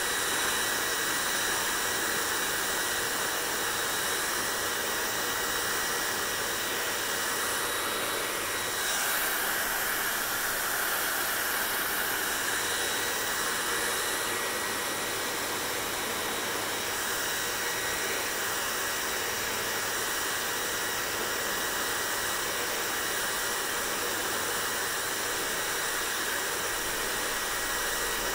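Hair dryer running steadily: a constant rush of blown air with a thin high whine from the motor, its sound shifting slightly about nine seconds in.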